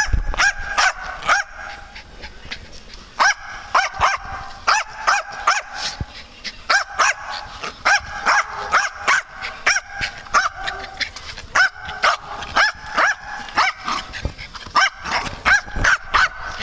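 Small Jack Russell-type terrier barking in play: quick runs of short, high barks, about three a second, broken by brief pauses.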